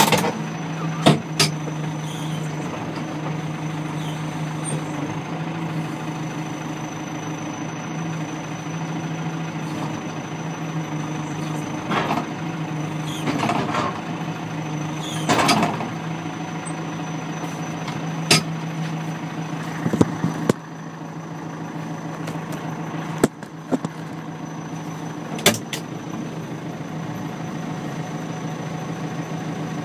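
Fermec 860 backhoe loader's turbocharged diesel engine running steadily, heard from inside the cab, with a steady high whine of its turbo. Sharp clunks and knocks come about ten times as the backhoe arm works.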